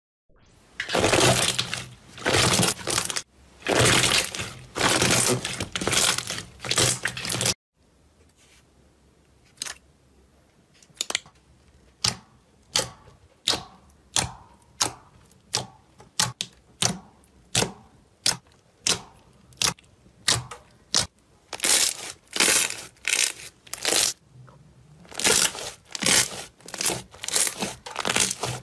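Hands squishing and pressing slime, making wet crackling and popping as trapped air bubbles burst. Dense crackling comes in long runs for the first seven seconds, then stops suddenly; after that come sharp single pops about once a second, turning back to dense crackling squishes near the end.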